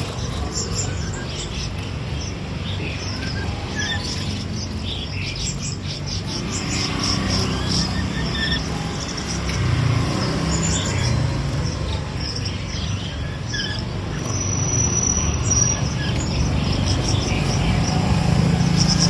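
Caged laughingthrushes chirping and calling in many short, scattered notes, with one held high whistle about fourteen seconds in, over a steady low background rumble.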